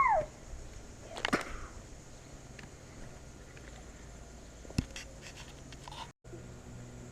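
A few sharp clicks or knocks spaced seconds apart, the loudest about a second in and near five seconds in, over a low background. A steady low hum starts after a brief dropout near the end.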